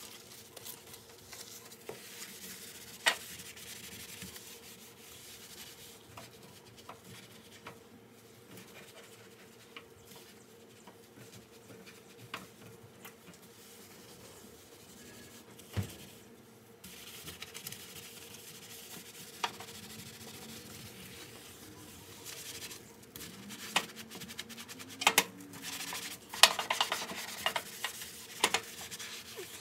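Kitchen surfaces being wiped and scrubbed during cleaning, with scattered knocks and clinks of items being handled, busier near the end.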